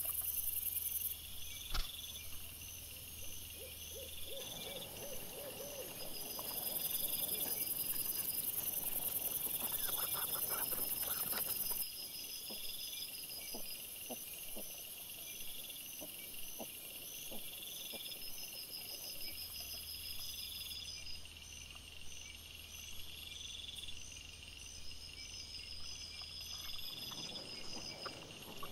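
Night insects chirping in a steady chorus of evenly repeating pulses, over faint scattered rustling and snuffling from wild boar foraging on the ground. A single sharp click sounds about two seconds in.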